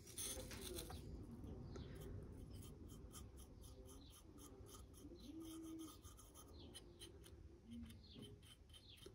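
Faint, soft scratching and tapping of a fine paintbrush being worked in a paint palette and along tiny model helicopter rotors.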